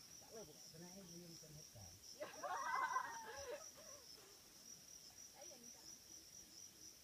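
Insects chirring steadily in a high, even pulse, with faint voices murmuring underneath; about two seconds in, a voice rises louder for a little over a second.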